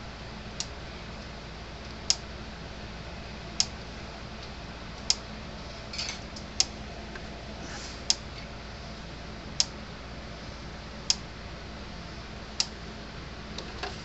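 Stafix M20R electric fence energizer pulsing on the bench, a sharp click about every second and a half as each high-voltage pulse fires, a sign that the repaired unit is working.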